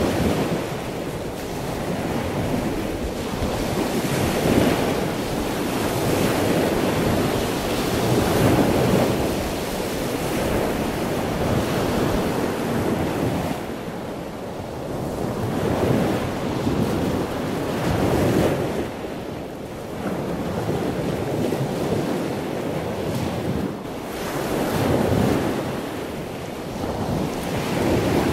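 Sea waves washing onto the shore in a steady wash, swelling and falling back every few seconds.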